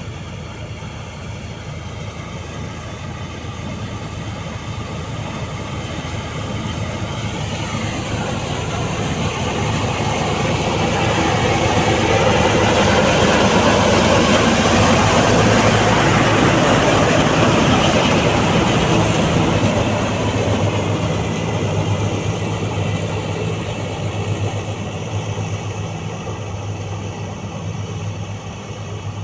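Combine harvester running while harvesting wheat: a steady mechanical drone of engine and threshing machinery that grows louder toward the middle, then eases off.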